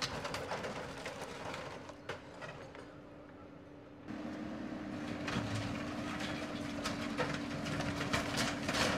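Case backhoe loader running steadily while it tears down a wooden shed with a corrugated roof. From about four seconds in it gets louder, with repeated cracks, knocks and clatter of breaking boards and sheeting.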